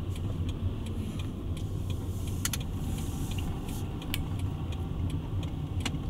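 Car cabin noise while driving: a steady low road and engine rumble, with a few light clicks scattered through it.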